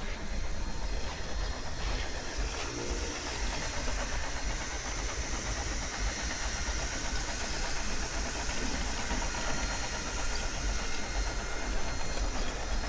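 Mammotion Yuka robotic lawnmower starting its first mow, its electric blade motor running steadily as it cuts long grass, with a high whine that builds a few seconds in, over a low rumble.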